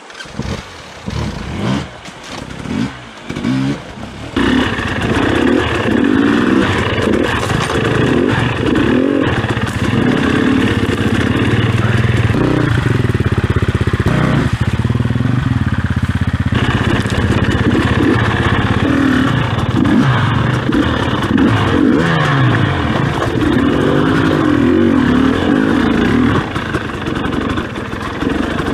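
KTM 250 enduro motorcycle engine heard up close, running at low speed with the throttle repeatedly opened and closed, so the revs rise and fall, as the bike is worked over rocks in a creek bed. It starts about four seconds in, after a few short uneven bursts.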